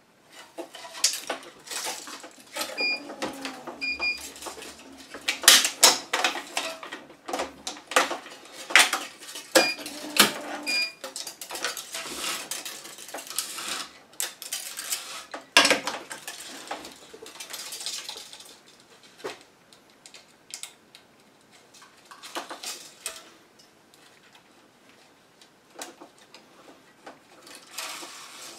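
Irregular clicks, taps and rattles of a tennis racquet being strung on a stringing machine: the string is pulled and woven through the frame while an awl, clamps and frame knock together. A few short high beeps sound in the first half.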